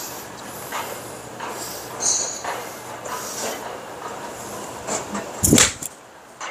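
An iron club strikes a golf ball off a range mat about five and a half seconds in, a single sharp crack and the loudest sound. Around it is a steady background hum with a few fainter clicks.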